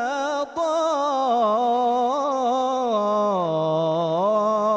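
A solo male voice sings an unaccompanied Islamic ibtihal (devotional chant), drawing one word out into a long melismatic line with fine ornaments. The pitch sinks lower about three and a half seconds in and climbs back up near the end.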